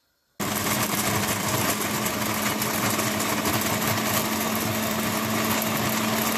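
Electric food processor switched on about half a second in, its motor running steadily with a constant hum while the blade grinds bread crusts into breadcrumbs.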